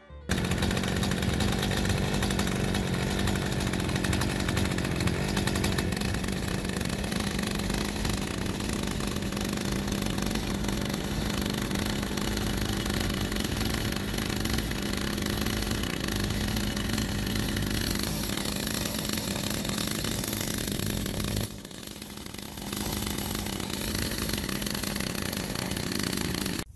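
Stihl MS211 chainsaw's small two-stroke engine idling steadily on its first runs after a restoration and carburetor adjustment, running evenly. Its level drops briefly for about a second roughly three-quarters of the way through.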